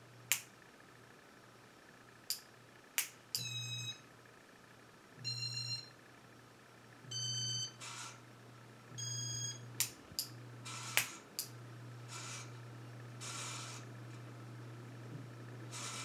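1984 Casablanca Panama ceiling fan running with a steady low motor hum. Over it come four short electronic beeps, each about half a second and pitched slightly differently, and several sharp clicks, as the fan's electronic control changes its settings.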